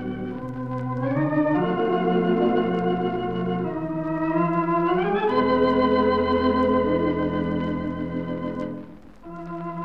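Wurlitzer theatre pipe organ playing sustained chords that glide up into new ones about a second in and again around five seconds, with a brief pause near the end before the next phrase.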